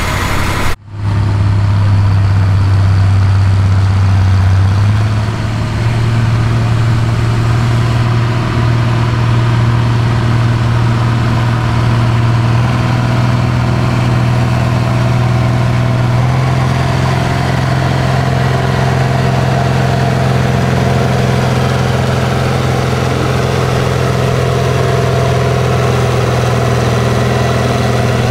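Allis-Chalmers D21's six-cylinder diesel engine running hard under load as the tractor drags a weight-transfer pulling sled. The sound breaks off for an instant about a second in, then runs steady, with the engine note stepping up slightly about five seconds in.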